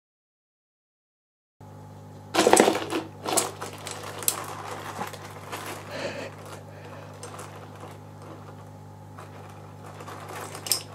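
Metal tweezers and a Geograpsus crinipes land crab clicking and scraping on coral rubble as the crab grabs the tweezers. After a silent first second and a half comes a burst of scraping and rattling, then scattered clicks over a low steady hum.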